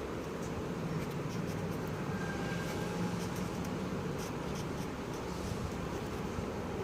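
Felt-tip sketch pen scratching on paper in short strokes, colouring in small shapes, over a steady low background hum.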